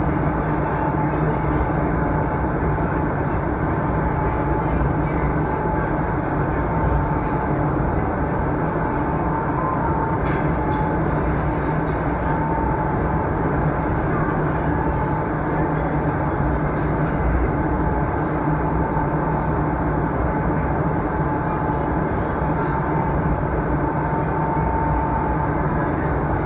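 Vertical wind tunnel running at flying speed: a constant rush of air with a steady fan hum under it, unchanging throughout.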